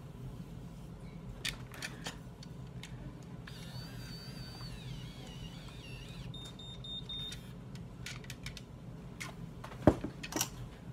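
Conair Curl Secret automatic hair curler: a few seconds of high, wavering whine, then a short string of electronic beeps from its curl timer. Light handling clicks throughout, and a sharp knock near the end.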